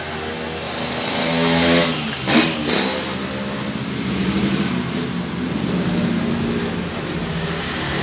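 A motor vehicle engine revving up, rising in pitch over the first two seconds, with a brief loud burst of noise just after two seconds, then running on more steadily.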